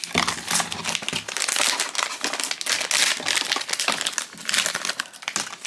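Silver foil blind-box bag crinkling as it is pulled out of its cardboard box and torn open by hand, a dense run of irregular crackles.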